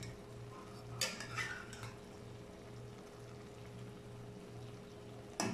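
A metal spoon stirring cooked white rice in a pot, with a short scrape and clink about a second in, over a steady low hum. A louder metal clatter begins right at the end.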